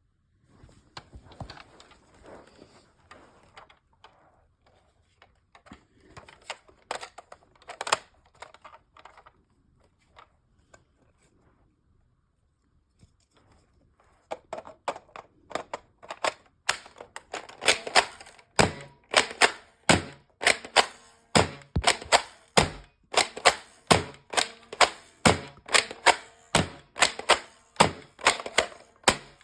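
Nerf foam-dart blaster being handled, with scattered plastic clicks and clacks. After a near-silent pause comes a long, even run of sharp mechanical clacks, about two a second, as the blaster is worked over and over.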